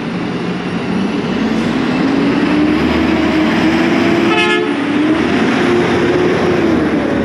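Autocar front-loader garbage truck with a McNeilus body approaching and passing close by, its engine running, rising in pitch as it pulls up and getting louder. A short horn toot about four and a half seconds in.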